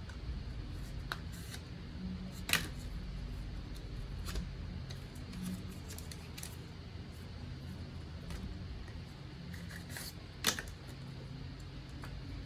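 Light clicks and taps of hands handling packaging and small plastic parts, with two sharper clicks about two and a half seconds in and near the end, over a steady low hum.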